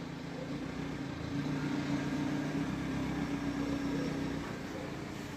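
A motor running steadily with a low hum, swelling a little in the middle and then easing back.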